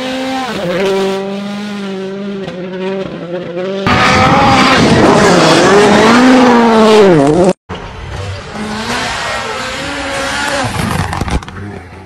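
Rally cars' turbocharged engines at full attack, cut from clip to clip: the engine notes climb and fall through gear changes. The loudest pass comes in the middle, its pitch dropping sharply as the driver lifts, then a brief dropout before the next car is heard.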